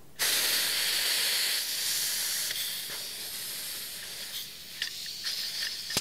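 A Ralston Quick Test fitting self-venting as it is unscrewed under about 2000 PSI: trapped pressure escapes in a hiss that starts abruptly, tapers off over several seconds and sputters in a few short spurts near the end. This is the safe self-vent rather than the fitting blowing off.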